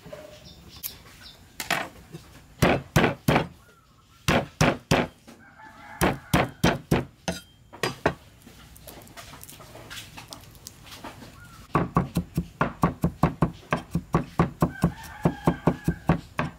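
Cleaver chopping garlic on a thick wooden chopping block: scattered groups of sharp knocks, then a steady run of about four chops a second over the last few seconds. Chickens cluck in the background.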